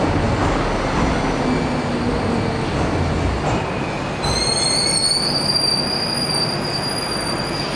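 Docklands Light Railway train running, a steady rumble. About halfway through, a high, sustained wheel squeal starts up and holds.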